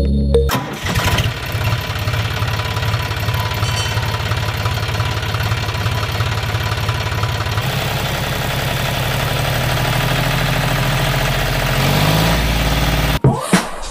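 Small electric gear motors of a homemade wired toy tractor running: a steady whirring buzz with a fast, fine rattle.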